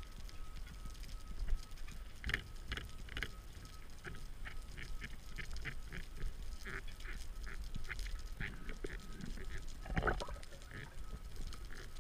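Rubber gloves rubbed against a speargun's latex rubber bands underwater, making a series of short, irregular squeaks, several a second, with one longer, lower squeak near the end. It is a noise made on purpose to draw curious trevally closer.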